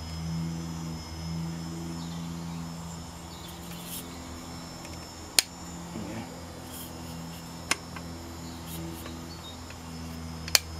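Three sharp clicks as parts of a car's fuel filter assembly are worked back into their mounting bracket, over a steady low hum.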